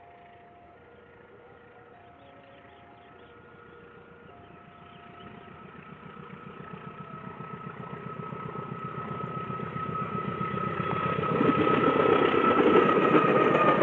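A railway level-crossing alarm sounds repeated alternating two-tone beeps, then fades under the PT INKA service train's diesel engine. The engine is heard approaching and growing steadily louder through the second half, with a rhythmic beat and a steady whine.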